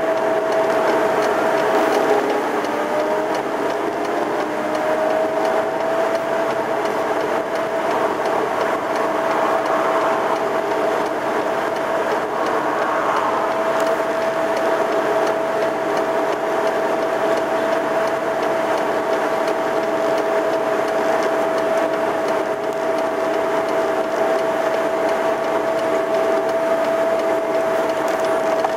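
Compact road sweeper working its way closer: engine and brush noise under a steady high whine. The whine drops briefly about two seconds in, then rises back to pitch.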